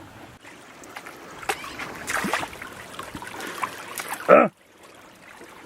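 Shallow stream water running, with splashing as someone wades barefoot through it. A short voice sound about four seconds in.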